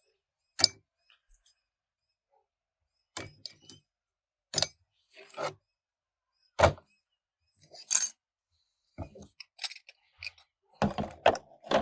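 Metal transmission parts knocking and clinking as they are handled and set down: about eight separate sharp knocks a second or two apart, the loudest near the start and about halfway, with a quick cluster of clinks near the end.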